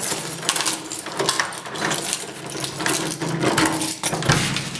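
A key jingling on its ring and turning in a door lock: rapid metallic clinks, clicks and rattles, over a low steady hum that fades about three and a half seconds in.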